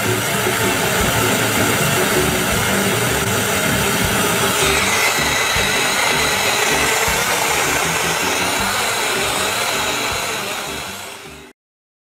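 Extsud portable USB blender's small battery-powered motor running steadily, churning a fruit-and-water mix. The extra water keeps it running without jamming. It stops suddenly near the end.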